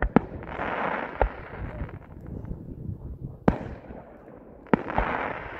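Aerial firework shells bursting in the sky: about five sharp bangs, two of them close together near the end, each loud group followed by a second or so of crackling as the glittering stars break apart.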